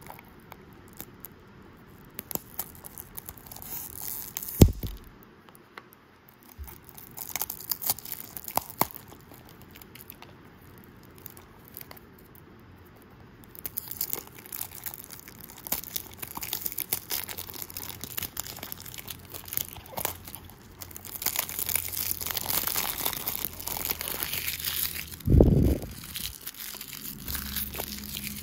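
Clear plastic shrink wrap on a small cardboard box being slit with a blade and peeled off by hand, crackling and crinkling in irregular bursts, heaviest near the end. Two short dull thumps, one about four seconds in and one near the end.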